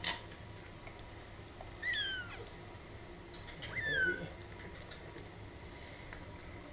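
Four-week-old kittens mewing: two thin, high-pitched mews, each sliding down in pitch, about two and four seconds in. A short knock right at the start.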